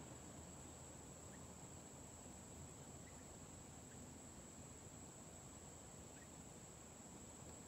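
Near silence: faint woodland ambience with a steady high-pitched insect trill, like crickets.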